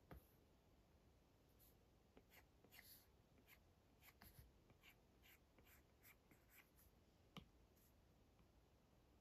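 Faint scratching and tapping of an Apple Pencil's plastic tip on an iPad's glass screen in short sketching strokes, with a sharper tap near the start and another about seven seconds in.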